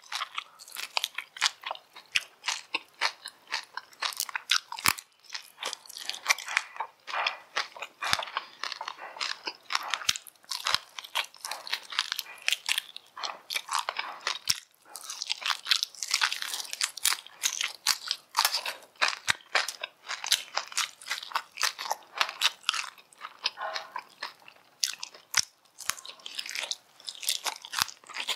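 Close-miked eating of crispy fried rat meat: a dense, continuous run of crisp crunches and cracks as the pieces are bitten and chewed, with short pauses.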